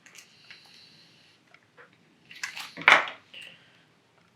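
Plastic toy packaging being handled: rustling, then a louder clatter of plastic about three seconds in.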